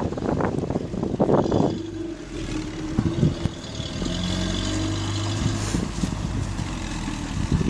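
Land Rover Series III engine running as the vehicle pulls slowly away over rough ground, its note steady with small rises in revs. Wind buffets the microphone for the first couple of seconds.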